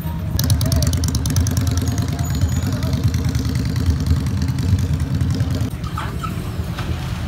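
Cruiser motorcycle being push-started (bump-started) because it will not start on its own: the engine is turned over by the push and chugs in a fast even rhythm, then the rhythm stops about six seconds in.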